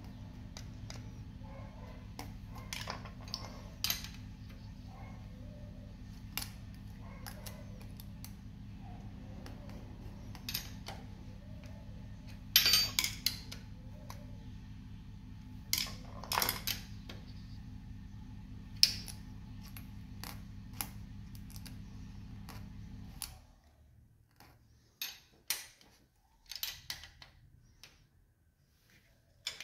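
Steel hand tools clinking and ticking on the valve gear of a Honda R16 engine: a ring spanner and screwdriver turning the rocker-arm adjusting screws and locknuts while valve clearance is set. The clicks are scattered and irregular, a few sharper and louder ones in the middle, over a steady low hum that cuts off about three-quarters of the way through.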